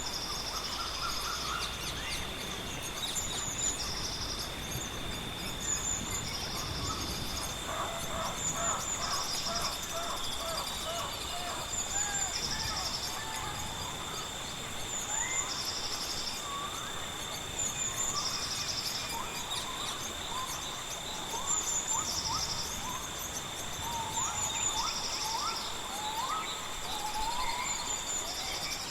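Outdoor nature ambience: birds chirping and trilling among a steady high insect-like whine, with one short buzzy call repeated about every two seconds.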